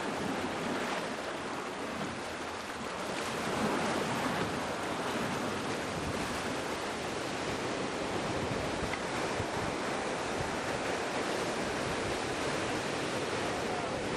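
Sea surf: waves breaking and washing up the shore, a steady rushing that swells slightly a few seconds in.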